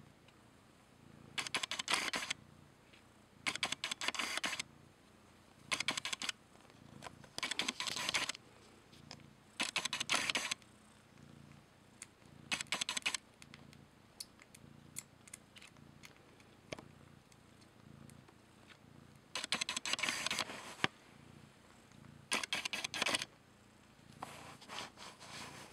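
A mother cat purring while she nurses her newborn kittens. The purr comes in loud surges about every two seconds, following her breathing, and is softer in between.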